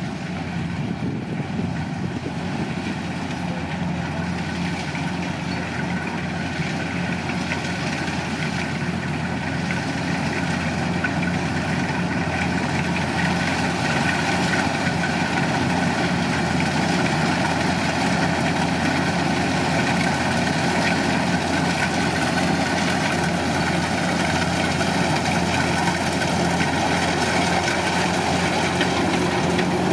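Kubota DC-105 combine harvester's diesel engine running steadily at an even speed, growing gradually louder.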